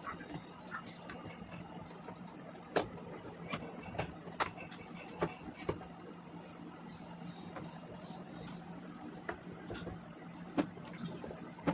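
Irregular sharp clicks and knocks, one or two a second, over a steady low hum.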